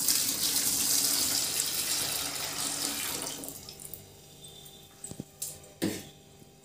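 Water poured from a metal pot into a plastic bucket: a splashing stream that tapers off after about three and a half seconds. Two short sharp knocks follow near the end.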